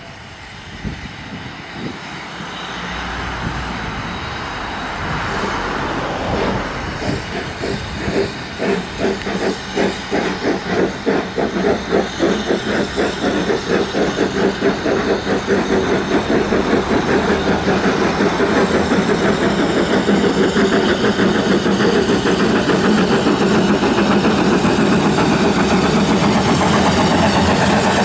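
Narrow-gauge steam locomotives working a train away: the exhaust beats start slowly and quicken until they run together into a fast, steady chuffing with steam hiss, growing louder as the train comes on.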